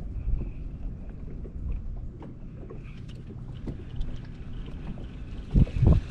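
Wind buffeting the microphone as a low rumble, with scattered small knocks and two heavy low thumps close together near the end.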